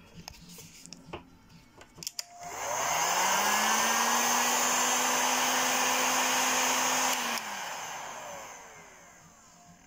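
Hot-air heat gun switched on about two seconds in, its fan whine rising as it spins up, then blowing steadily for about four seconds to shrink heat-shrink tubing over soldered wires. It is switched off and winds down with a falling whine.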